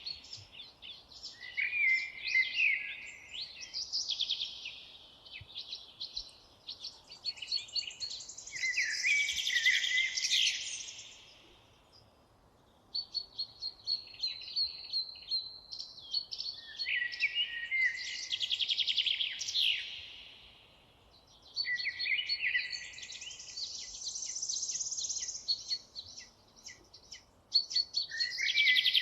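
Songbirds singing long phrases of fast trills and chirps, each lasting several seconds, with short pauses between them.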